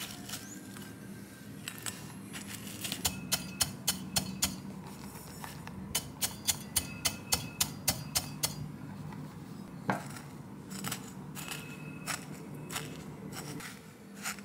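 Metal pastry blender crushing digestive biscuits in a glass bowl: runs of sharp clicks, about four to five a second, as the wire blades strike the glass through the crumbs. Fainter clicks follow.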